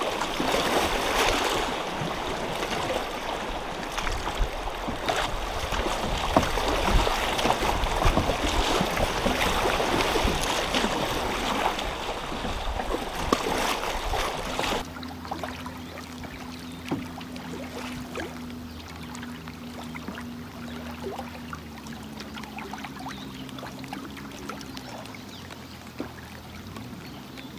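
Wind buffeting the microphone over choppy river water, with the splash of canoe paddle strokes. About halfway through it cuts abruptly to something much quieter: soft background music over faint water.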